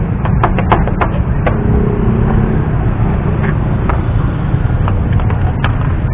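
Vehicle engine running steadily, with several sharp clicks or knocks in the first second and a half and a few more later.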